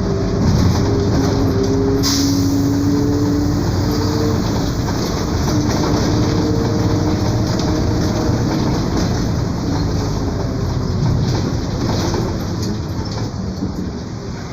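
Mercedes-Benz OF 1721 BlueTec 5 bus on the move: a steady rumble with a droning whine from a growling differential. The whine drifts slightly in pitch and fades after about nine seconds.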